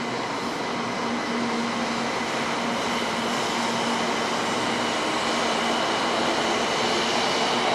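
Shinkansen high-speed train approaching: a steady rushing noise that slowly grows louder, with faint steady high tones over it.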